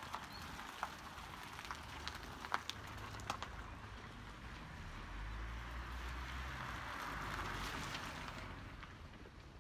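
Faint outdoor ambience on a wet, slushy street, with a few light clicks in the first few seconds. A car passes on the wet road from about five seconds in: a low engine rumble and tyre hiss swell, then fade.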